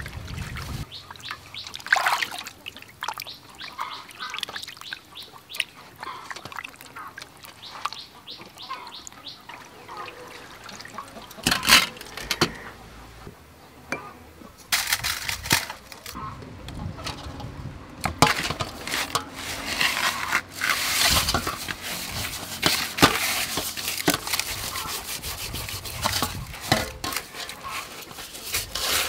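Hands working a snakehead fish in an aluminium bowl, rubbing it with coarse salt: wet squelching and slapping, gritty rubbing and knocks against the metal bowl. The handling is sparse at first and becomes dense and continuous about halfway through.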